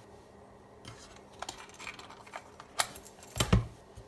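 Tools and parts being handled and set down on a workbench: a few light clicks, then two heavier knocks near the end.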